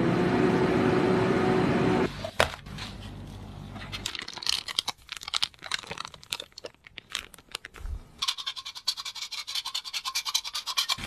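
A baking oven running with a steady hum for about two seconds, then scattered soft clicks and rustles from a plastic piping bag squeezing cream onto cupcakes. For the last three seconds comes a fast, even tapping and scratching, the sound of powdered sugar being sifted through a fine sieve.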